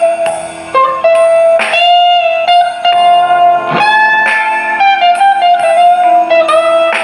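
Guitar playing a melody of plucked single notes, each ringing on after it is struck.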